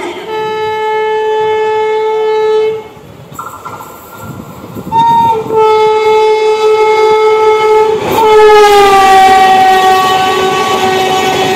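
Horn of a WAP7 electric locomotive sounding long, loud blasts as an express train runs through the station. There is a break a few seconds in; about eight seconds in the horn's pitch drops as the locomotive passes, over the noise of the train.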